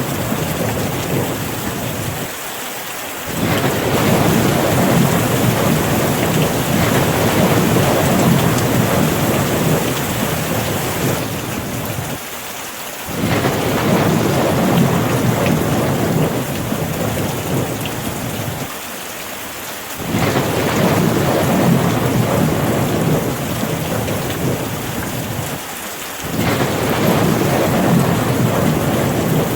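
Steady rain with a heavy low rumble under it. The rumble drops away for about a second four times, roughly every seven to ten seconds, while the rain hiss carries on.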